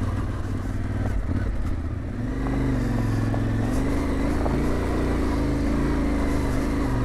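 Yamaha Ténéré 700's parallel-twin engine running steadily as the bike rides a rocky dirt track. The engine note settles to an even pitch about two seconds in, with a few light knocks over it.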